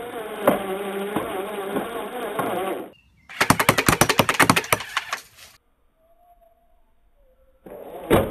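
Battery-drill-driven table-tennis-ball slingshot gatling firing full auto: the drill motor whirs with a wavering pitch, then a rapid clatter of about ten clicks a second runs for about two seconds. After a short quiet, the whirring and clicking start again near the end.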